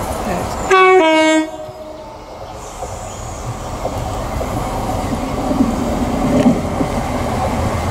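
East Midlands Railway Class 170 Turbostar diesel multiple unit sounding its two-tone horn once, about a second in: a short high note dropping to a lower one, under a second in all. Its engine and wheel rumble then grows steadily louder as it approaches.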